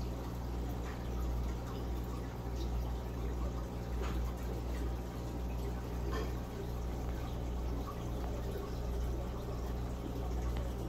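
Steady low hum with a water trickle running over it, and a few faint clicks about four and six seconds in.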